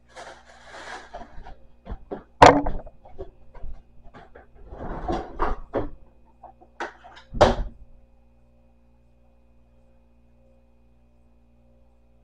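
Plastic bag rustling and being handled, with small clicks and two loud thuds, the first about two and a half seconds in and the second about seven and a half seconds in; after that only a faint steady hum.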